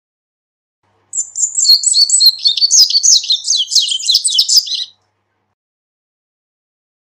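Male double-collared seedeater (corbatita) singing one song of about four seconds: a fast run of high, sliding notes that starts about a second in and stops short.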